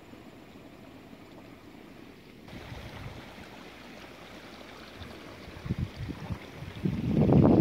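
Wind buffeting the microphone in an open rice field: a low, uneven rumble that swells in gusts, with the strongest gust near the end.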